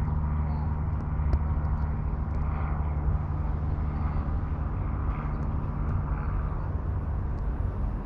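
Steady low engine rumble with a droning hum, unchanging throughout.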